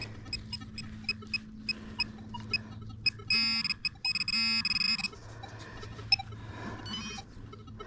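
Metal detector beeping: short regular beeps about three times a second, then from about three seconds in a louder, faster run of beeps for nearly two seconds as it sits right over a metal target in the dug hole.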